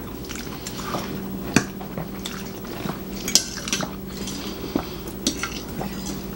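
Forks clinking and scraping on ceramic dinner plates, scattered irregular clicks, a few sharper ones standing out.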